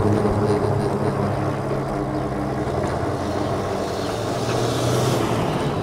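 Super73 RX fat-tire e-bike riding at speed: a steady hum from the tires and motor as it rolls over a steel-grate bridge deck and onto asphalt, with a rushing noise that swells near the end.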